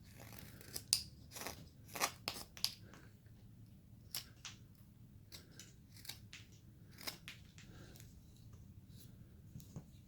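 Carving knife slicing small chips from a basswood figure: a run of short, crisp cuts at an uneven pace, thicker in the first few seconds, then more spaced out.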